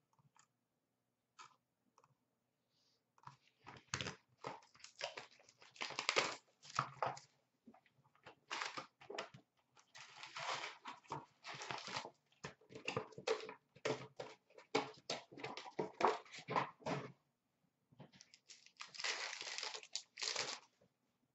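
Upper Deck Artifacts hockey card packs and their cardboard box being handled, with wrappers torn open and crinkled in a long run of short rustling bursts that begins a few seconds in, pauses briefly, and comes back near the end.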